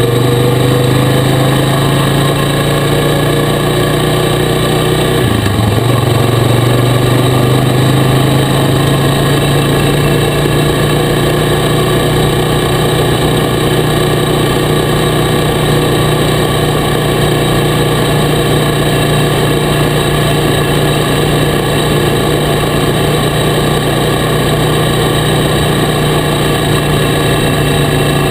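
Honda four-wheeler (ATV) engine running steadily while riding along a dirt road, its pitch climbing in the first couple of seconds, with a brief dip in the engine note about five seconds in.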